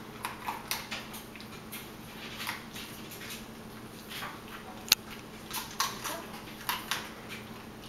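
A small puppy eating dry kibble from a hand: scattered small crunches and clicks, with one sharper click about five seconds in, over a faint low steady hum.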